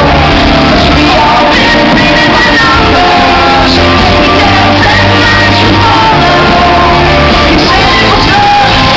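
Live rock band playing loud: a woman sings lead into a microphone over electric guitar and a drum kit.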